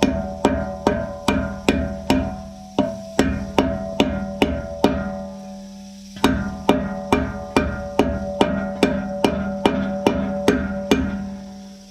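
Hammer blows on a steel socket being driven onto a rusted, rounded-off bolt head in the hub of a disc mower's steel cutting disc. The blows come about two to three a second, each ringing with a metallic tone, with a pause of about a second around the middle.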